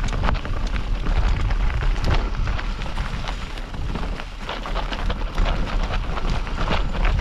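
Mountain bike riding over a rough trail: dense, irregular rattling and crunching from the tyres and bike over stones, with a heavy, steady rumble of wind on the camera microphone.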